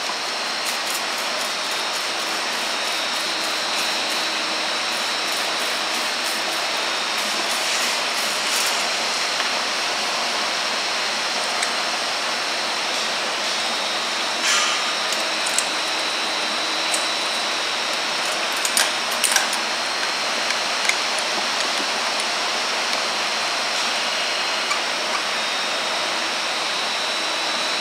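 Steady loud hiss of brewery room noise, with scattered metal clicks and clinks as a braided hose is fitted to a fermenter's cone valve with a stainless tri-clamp. The clicks come in a cluster about eight seconds in and again around nineteen seconds.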